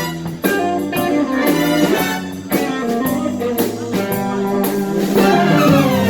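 Band music: guitar notes over a steady drum beat, in a blues style.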